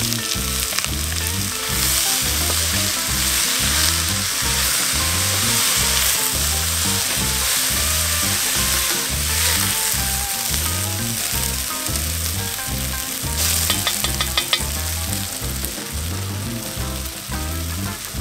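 Diced onions, mushrooms and bell peppers sizzling in hot oil in a cast-iron pot as they are stirred with a spatula, with a quick rattle of sharp clicks about three quarters of the way through. A steady low music beat runs underneath.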